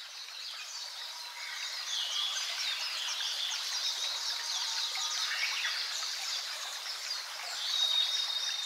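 Outdoor field ambience: many small birds chirping over a steady hiss, with a thin, high, steady whistle about eight seconds in.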